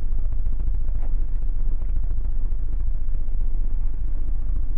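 Steady low rumble with hiss, without a break, and a faint click about a second in.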